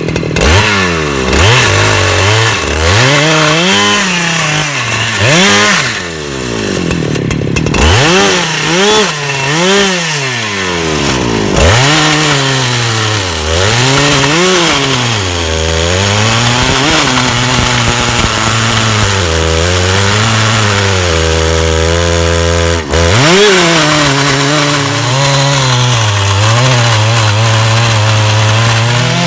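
Chainsaw in a milling jig, ripping a plank lengthwise from a log. The engine revs up and drops back several times at first, then runs more steadily under load with smaller swells in pitch.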